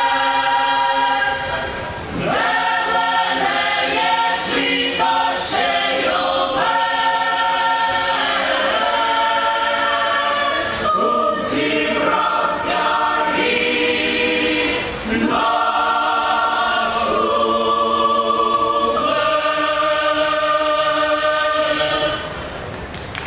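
A mixed folk choir of women's and men's voices sings a Ukrainian folk song in harmony through the stage microphones, in phrases of long held notes with brief breaths between them. The singing ends about a second before the end.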